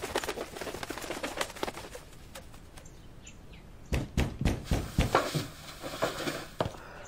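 Rustling and small creaks of a bound person straining against ropes on a wooden chair, then a run of heavy knocks and thuds on wooden floorboards about four seconds in as she lurches up from the chair.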